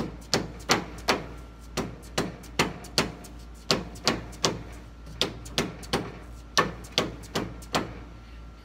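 Rubber mallet striking the gland of a skid steer's hydraulic lift cylinder in a steady run of about twenty blows, two or three a second, each with a short ringing tail. The blows drive the gland down into the cylinder to expose the snap ring that holds it.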